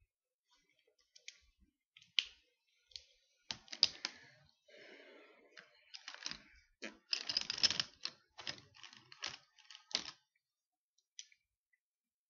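An irregular run of light clicks and clatters of small hard plastic things being handled, busiest twice in the middle, with a last click near the end.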